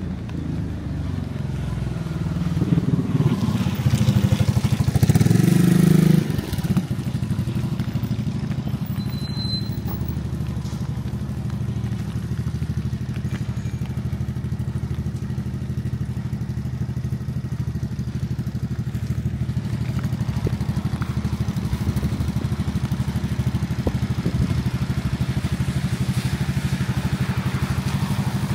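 Motor vehicle engine running close by in street traffic. It swells over the first six seconds, drops back abruptly, then settles into a steady low drone.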